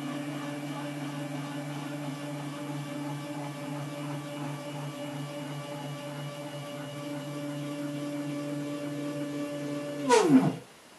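Z-axis stepper motors driving ball screws at a constant speed, giving a steady whine of several tones. About ten seconds in the whine swoops down in pitch, briefly louder, as the axis decelerates and stops.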